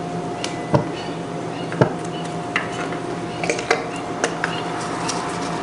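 Metal parts of a disassembled pressure washer pump clinking and knocking against each other as they are handled and fitted together: a handful of sharp clicks, the two loudest in the first two seconds. A steady hum runs underneath.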